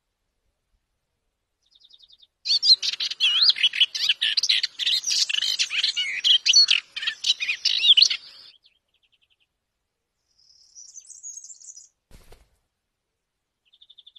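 A warbler singing a long, rapid run of varied notes lasting about six seconds, with short trills before and after and a briefer, higher phrase a few seconds later.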